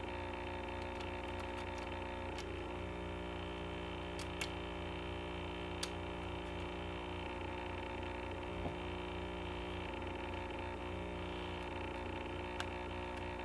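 Steady electrical mains hum, with a few faint clicks scattered through it from a broken plastic CD case being handled and fitted back together.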